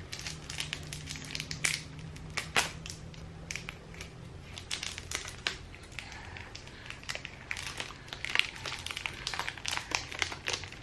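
Thin clear plastic bag crinkling and crackling in irregular bursts as hands open it and work a lump of white air-dry clay out of it.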